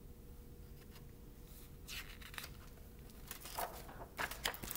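Quiet room with a faint steady hum, then soft rustling and a few short clicks in the last second and a half as the paper picture book is handled.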